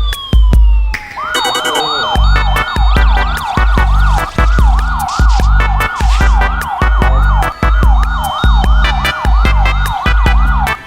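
Electronic background music with a steady heavy bass beat. About a second in it is joined by a siren-like wail that sweeps up and down about three times a second.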